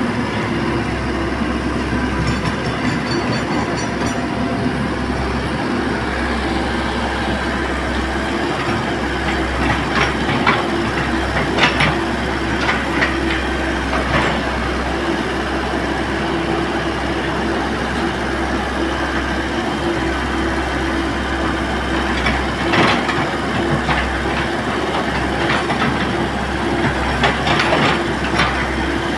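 Komatsu excavator's diesel engine running steadily under work, with scattered metallic clanks and knocks from the machine several times.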